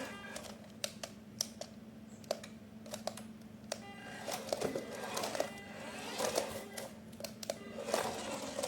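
Irregular light clicks and taps, several a second, over faint music and a steady low hum.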